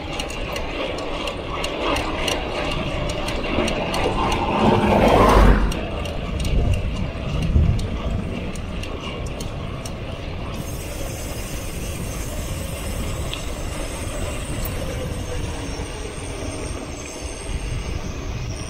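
Mountain bike rear freewheel hub ratcheting in fast clicks while coasting, over steady tyre rumble on a concrete road. A short rising squeal comes about five seconds in, after which the clicking fades into the rolling noise.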